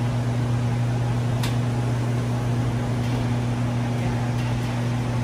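Steady low machine hum with an even airy rush, the constant drone of indoor building machinery, with one faint tick about a second and a half in.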